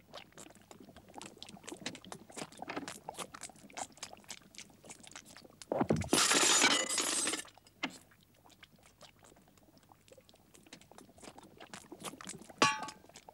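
Cartoon sound effects for swelling, creeping dough: a stream of small crackling clicks, a loud rushing hiss about six seconds in that lasts a second and a half, and a short ringing clink near the end.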